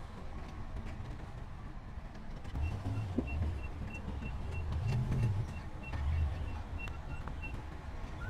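Heavy diesel construction machine engine rumbling and working up in load from about two and a half seconds in. A reversing alarm beeps steadily about three times a second over that span, then stops near the end.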